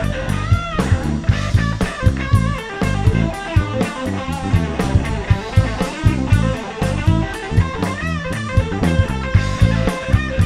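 Live rock band playing an instrumental break: electric guitar lead with bending notes over bass and a drum kit keeping a steady beat.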